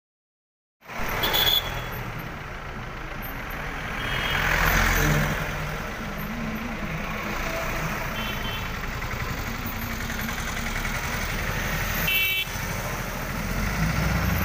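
Street traffic: vehicle engines running with a steady low hum, one passing swell about four seconds in, and a few short high beeps. It starts after about a second of silence.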